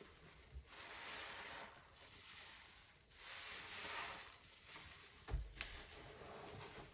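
Soapy sponges squeezed in foamy cleaning paste: two long wet, hissing squishes, then a dull thump and a sharp click near the end.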